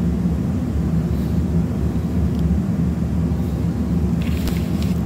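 A loud, steady low rumbling drone with no change in pitch, with a few faint light clicks near the end.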